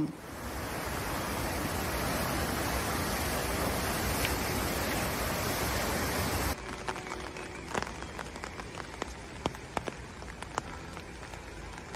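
Flood-swollen river rushing in whitewater spate: a loud, even rush of water. About six and a half seconds in it cuts to a quieter rush of a wide flooded river, with scattered sharp ticks over it.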